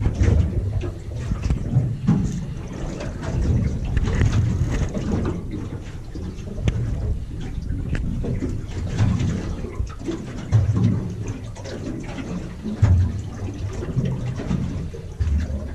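Sea water lapping and sloshing against the side of a small boat's hull, with an uneven low rumble of wind on the microphone.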